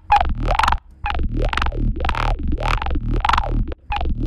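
Nasty-sounding synth bass loop, short bass notes repeating about two to three times a second over a deep low end, each with a sweeping wobble. It plays through FabFilter Volcano 3's high-shelf filter as the shelf frequency is moved.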